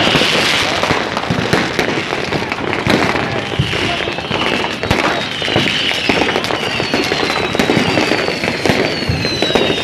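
Fireworks and firecrackers going off in a dense, continuous crackle of bangs and pops, with several high whistles sliding down in pitch through it.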